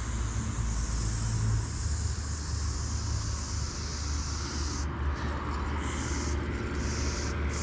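Aerosol spray paint can hissing as paint is sprayed onto a wall: one long spray of about five seconds, then a few short bursts. A steady low rumble lies underneath.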